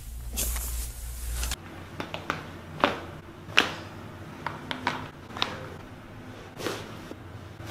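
Joints popping under a chiropractic adjustment: a string of sharp cracks and clicks, the loudest about three and a half seconds in, after a brief rush of noise at the start.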